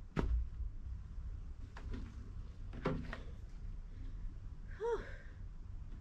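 Knocks and clunks of an elliptical trainer being mounted. A loud thump comes right at the start and a lighter knock about three seconds in, with a short squeak rising and falling about five seconds in, over a low steady rumble.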